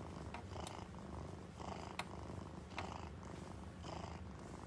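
Domestic cat purring close up: a steady low rumble that swells with each breath, roughly once a second.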